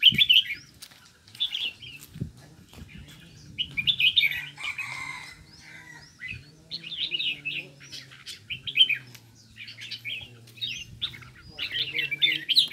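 Many small caged songbirds chirping in quick, repeated bursts, busiest near the start and near the end.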